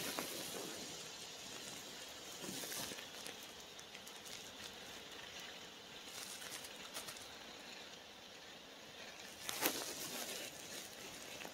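Faint outdoor woodland ambience with scattered soft rustles in dry leaf litter, and one louder, brief rustle near the end.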